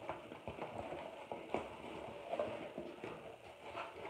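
A cardboard box being opened by hand: its flaps pulled back and rubbing together, with scattered small crackles and scrapes of cardboard.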